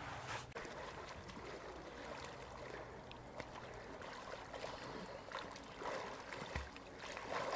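Faint splashing and lapping of lake water as a swimmer moves about in it, with a few slightly louder splashes.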